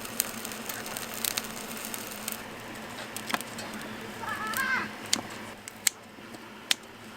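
A wood fire in a camp fire pit hissing with scattered sharp crackles and pops, with dried squid grilling over it.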